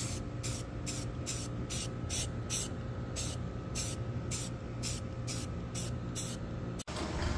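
Aerosol spray-paint can hissing in short bursts, about two a second, as black paint is dusted onto metal brackets. The bursts cut off abruptly near the end.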